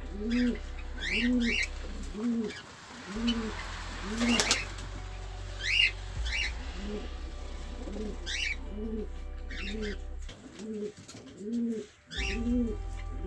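Domestic pigeons cooing in a steady repeated rhythm, about two low rising-and-falling coos a second, with small birds chirping in quick high pairs over it. A single sharp knock about four seconds in.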